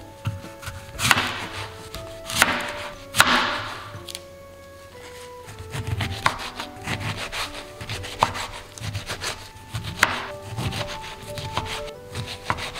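Kitchen utensil work over light background music: a few loud scrapes in the first few seconds, then a run of quick, irregular taps like a knife or spoon striking a board or pot.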